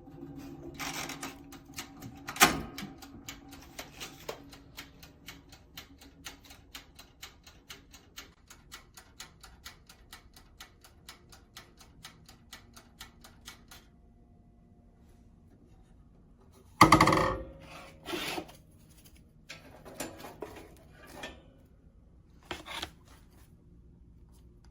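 Toaster oven's mechanical wind-up timer ticking steadily, a few ticks a second, stopping about two-thirds of the way in. A couple of loud knocks and clatter follow, then a few scattered clicks.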